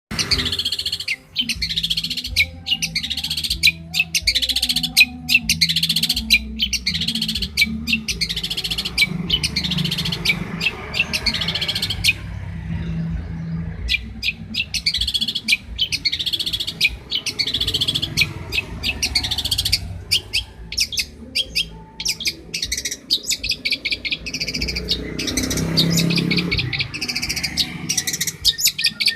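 Long-tailed shrike (cendet) singing a long, fast run of sharp, high chattering notes, with a brief pause about twelve seconds in, over a low steady hum.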